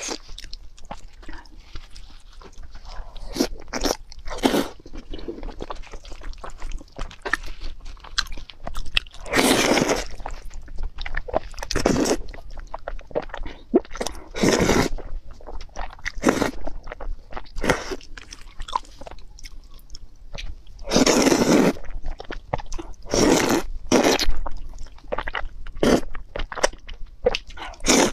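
Close-miked eating: noodles in a thick, saucy coating are slurped into the mouth in several drawn-out slurps, the loudest about a third and two-thirds of the way in, with wet chewing and mouth sounds between.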